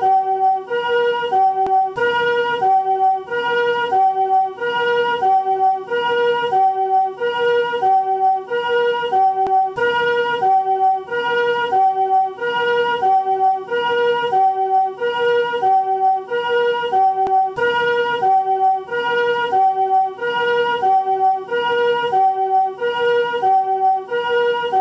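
Japanese ambulance 'comfort' chord siren sounding its pi-po call. It alternates between two notes, each a chord of several tones, repeating steadily about once a second.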